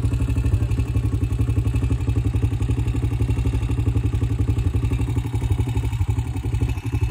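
A steady, low engine rumble with a fast, even pulse, dipping briefly near the end.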